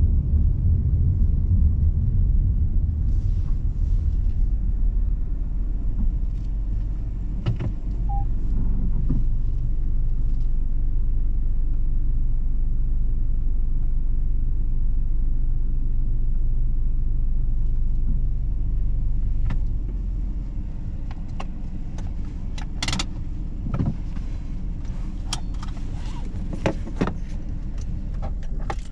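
In-cabin rumble of a Citroen C3 Aircross's 1.2-litre three-cylinder turbo petrol engine and tyres at low speed. About two-thirds of the way through the rumble drops as the car comes to rest, and near the end a run of sharp clicks and knocks from inside the cabin follows.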